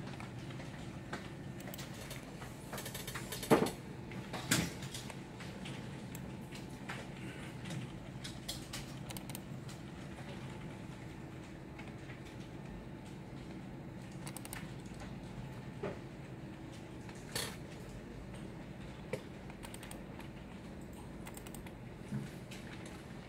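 Office room tone: a steady low hum from the computers, with scattered small clicks and knocks, the loudest two about a second apart a few seconds in.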